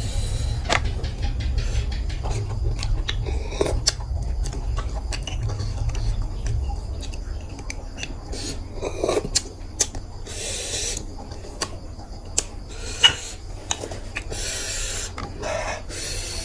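Close-up eating sounds: cooked snail shells clicking and scraping as the meat is picked out with a toothpick, with a few longer hissy bursts of about a second near the middle and end.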